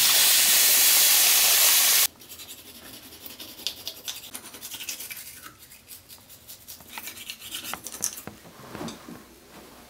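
A loud, steady rushing hiss that cuts off abruptly about two seconds in, followed by a toothbrush scrubbing teeth in a run of quick, scratchy strokes.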